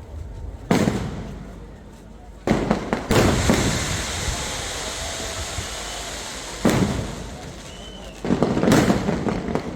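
Fireworks display: about six loud booms of shells bursting, unevenly spaced, with dense crackling between them.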